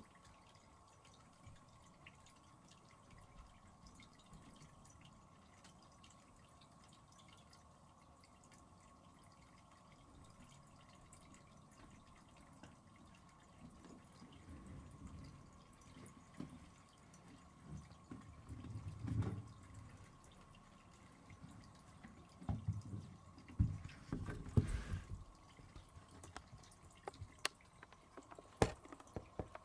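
Quiet room with a faint steady hum; from about halfway, soft low thumps and scattered clicks of movement right at the floor-level camera, growing louder toward the end.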